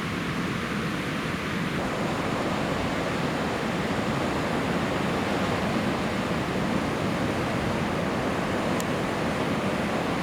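Ocean surf: a steady rushing wash of breaking waves.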